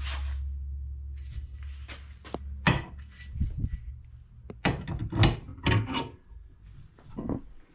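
A low hum dying away over the first few seconds, then a run of sharp knocks and clicks of hard parts being handled.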